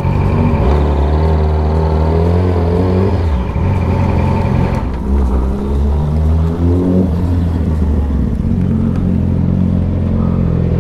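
A vehicle engine accelerating, heard on board. Its pitch climbs, drops about three seconds in as it shifts gear, climbs again, then settles into steadier running for the last few seconds.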